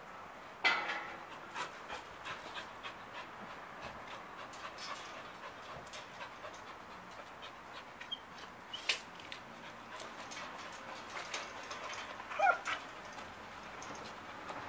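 Dog panting in quick short breaths, with scattered clicks and a sharp knock near the start, and a brief rising whine about twelve seconds in.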